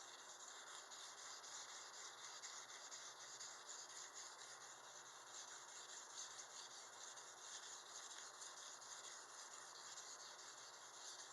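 Knife blade rubbing against a sharpener, a faint steady scratchy rasp that stops abruptly at the end.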